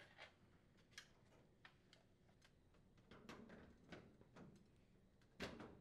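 Faint clicks and light knocks of a plastic appliance control panel being handled and set back into place on the cabinet, with a louder knock near the end.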